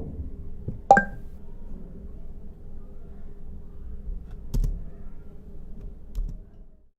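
Three sharp clicks from a Mac being operated, the loudest about a second in with a brief ringing tone, over a faint steady hum. The sound cuts off abruptly near the end.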